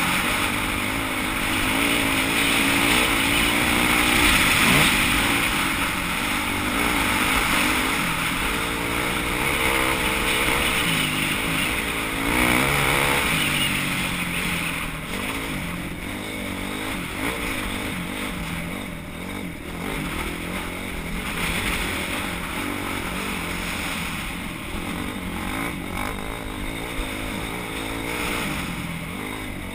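Off-road motorcycle engine running and being revved up and down as the bike is ridden over rough ground, its pitch rising and falling continually.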